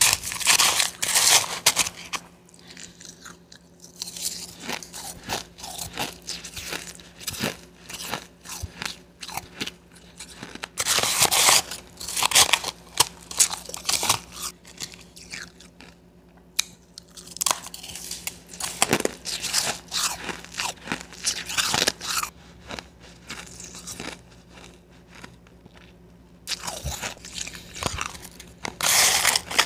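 Blended Wawa ice being bitten and crunched between the teeth right at the microphone, in bursts of chewing a few seconds long with quieter pauses between.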